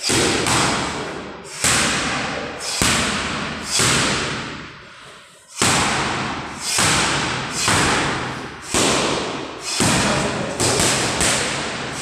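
Boxing gloves smacking into focus mitts, about a dozen punches at roughly one a second with a quicker flurry near the end. Each smack rings on briefly in the hall.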